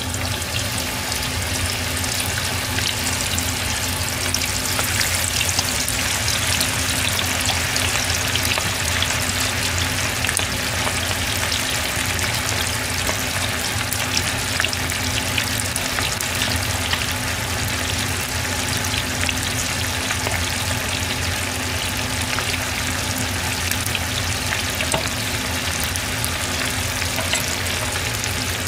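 Chicken karaage deep-frying in a pot of oil kept at high heat: a dense, steady crackling sizzle of many bubbles. It grows fuller over the first few seconds as the last pieces are dropped in.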